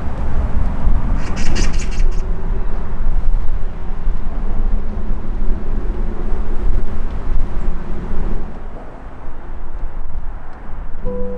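Outdoor ambience dominated by a steady low rumble, with a brief run of light clicks about a second in.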